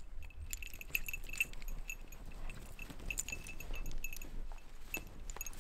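Small metal tags on a dog's collar jingling again and again with the same bright ring, over the soft crunch of snowshoes packing down deep powder snow.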